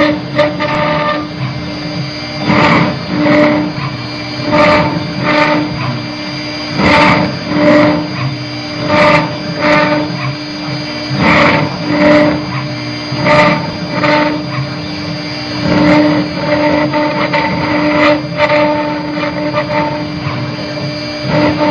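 Stone CNC engraver router at work: a steady spindle tone with louder grinding surges in pairs about every two seconds as the cutter works the stone.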